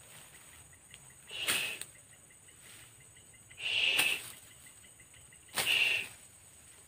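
A long thin stick swung hard into dry grass three times, each stroke a sharp swish and slap followed by a short rustle of the stems.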